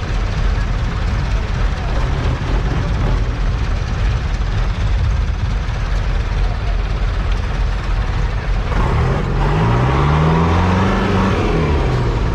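Storm wind buffeting the microphone with a heavy, steady rumble. About nine seconds in, a motor comes through, its pitch rising and falling for a few seconds.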